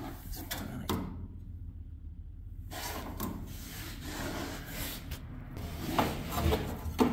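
Rubbing and handling noises with a few scattered sharp knocks, as of things being moved and handled.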